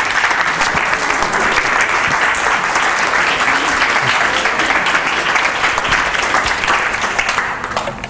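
Audience applause: a dense, steady clapping that dies away near the end.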